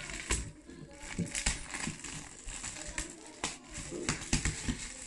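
A shiny gift bag crinkling and rustling as hands handle and open it, a run of irregular sharp crackles.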